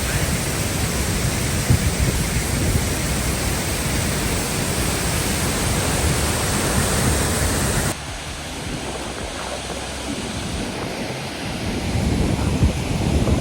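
Waterfall close by, a loud steady rush of falling water. About eight seconds in it drops suddenly to a quieter, duller rush.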